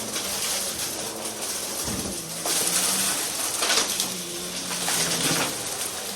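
Vacuum cleaner running with a steady motor hum, its rush of air swelling and easing every second or so as it is pushed quickly back and forth.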